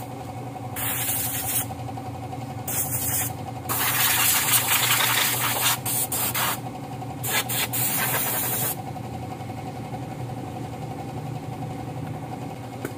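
Compressed air blown from an air hose at a minibus's drum-brake assembly: five hissing blasts, the longest about two seconds, the last ending a little before nine seconds in. A steady engine-like hum runs underneath.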